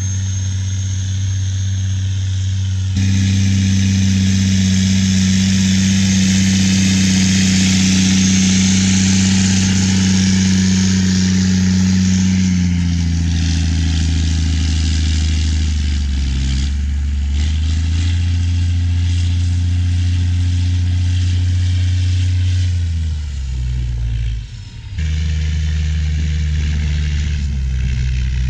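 Big Bud tractor's large diesel engine running steadily under load while pulling a multi-bottom moldboard plow. The engine note steps down in pitch about halfway through and again near the end, with a brief dip in level just before the end.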